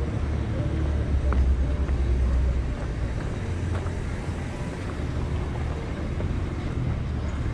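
Street traffic: a passing vehicle's low engine rumble, loudest over the first couple of seconds and easing off about three seconds in, over steady traffic noise.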